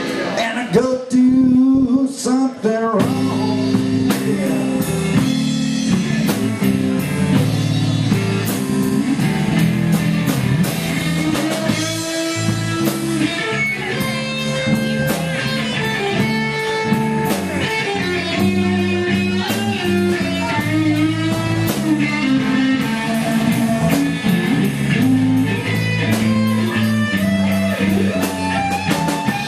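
A band playing bluesy rock music: guitar over bass and a drum kit with a steady beat.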